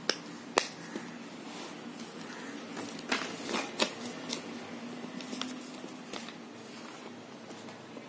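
Two sharp pops in the first second from a simple dimple fidget toy's silicone bubbles being pressed. Then a sheet of paper rustles as it is picked up and handled in the middle, with a few light taps and clicks of the toys on the table.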